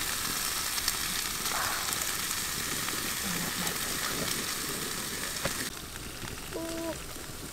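Whole fish sizzling on a wire grill over a charcoal fire, a steady hiss with fine crackling that softens a little in the last couple of seconds.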